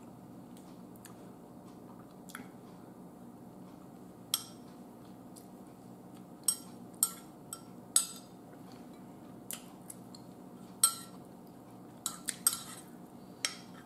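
A metal spoon clinking and scraping against a ceramic bowl of chili: about eight short, sharp clinks, spaced irregularly, over a faint steady hum.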